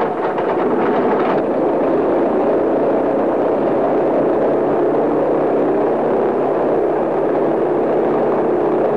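Goodyear airship's piston engine and propeller running steadily: a loud, even drone, with a rapid flutter that fades about a second and a half in.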